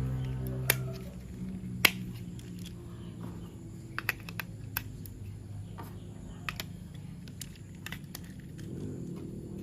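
Scattered sharp plastic clicks and taps of toy train parts being handled and fitted together, a few at a time with pauses between, over faint low background music.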